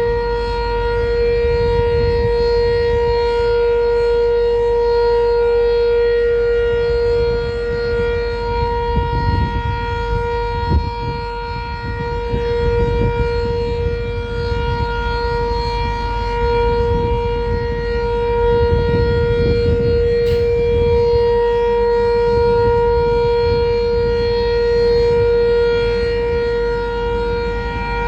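Sentry 7V8 outdoor warning siren sounding a steady tone during a siren test. Its pitch holds level while its loudness swells and fades gently every several seconds.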